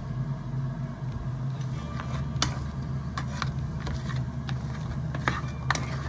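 Plastic spatula stirring chips in a nonstick frying pan, scraping and knocking against the pan in a few sharp clicks, over a steady low hum.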